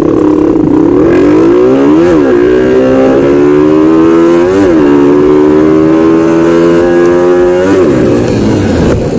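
Suzuki Satria FU motorcycle engine accelerating hard through the gears. Its note climbs and dips at two upshifts, about two and four and a half seconds in, then holds a high, slowly rising note until it falls away suddenly near the end.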